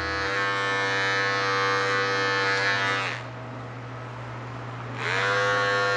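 Electric hair clipper running steadily as it cuts over a comb. About three seconds in its hum winds down and stops, and about two seconds later it spins back up to a steady buzz.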